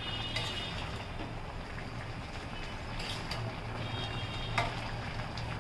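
A metal spatula stirring a pot of bottle gourd and fish curry, scraping and knocking a few times against the aluminium pot, the sharpest knock about four and a half seconds in, over a steady low hum and hiss.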